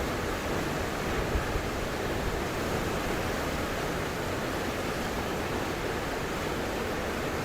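Roaring River Falls, a waterfall pouring into its pool, rushing in a steady, unbroken wash of water noise.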